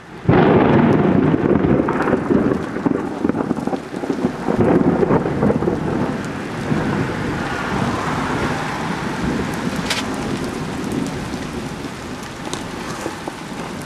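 A loud thunderclap breaks about a third of a second in and rolls on as rumbling thunder for several seconds, slowly fading, with steady rain falling throughout.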